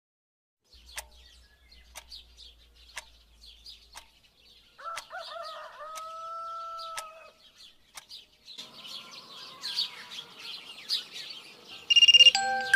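Birds chirping, with a clock ticking about once a second and a rooster crowing once about five seconds in; the birdsong grows busier, then near the end a smartphone alarm ringtone starts, loud and repeating.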